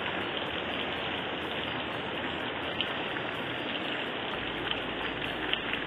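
Heavy rain pouring steadily onto a muddy dirt road: a dense, even hiss of drops.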